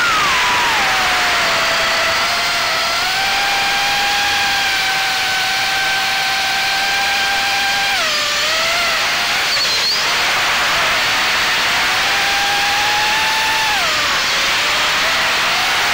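Acrobrat FPV quadcopter's brushless motors and propellers whining steadily, the pitch sliding with the throttle. It falls just after the start, holds, dips about eight seconds in, holds again, drops a second or two before the end, then climbs.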